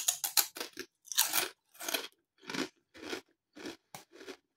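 A person bites into a crinkle-cut potato crisp with a quick run of sharp crunches, then chews it with single crunches a little over half a second apart that grow fainter.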